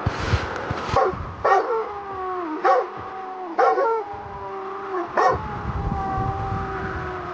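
A dog whining and yelping: about five short cries, each trailing off into a long whine that falls in pitch. There are a few soft low thumps in the first second.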